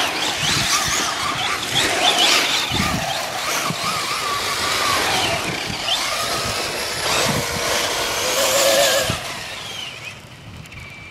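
Electric radio-controlled truck driving on dirt, its motor whining up and down in pitch as it accelerates and slows, with tyre and gravel noise; it grows fainter near the end.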